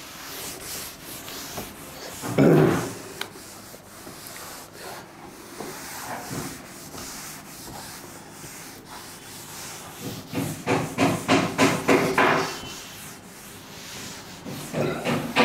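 A cloth being wiped across a chalkboard to erase chalk writing, in scrubbing back-and-forth strokes. About ten seconds in it speeds up into a quick run of strokes, about four a second.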